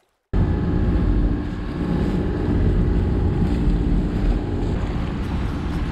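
A catamaran under way at sea: wind buffeting the microphone over the rush of water past the hulls, with a steady low drone underneath. The sound cuts in suddenly just after the start, following a moment of silence.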